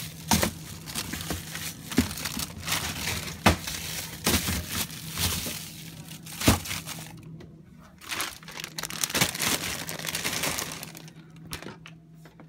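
Plastic bags crinkling and plastic food containers knocking and clunking as they are shifted about on a refrigerator shelf, with several sharp knocks over a steady low hum.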